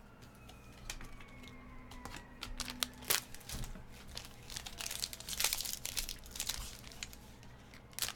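Foil trading-card wrapper of a 2019 Panini Chronicles baseball pack being torn open and crinkled by hand. A few scattered crackles come first, then a dense run of crinkling about halfway in.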